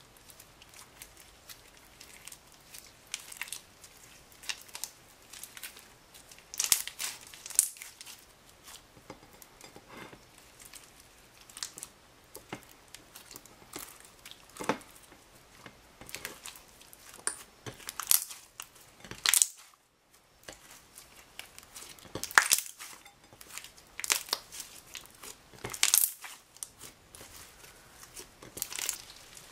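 Slime mixed with crushed eyeshadow and sprinkles being stretched, folded and squeezed by hand, giving irregular sticky pops and snaps with a few louder ones.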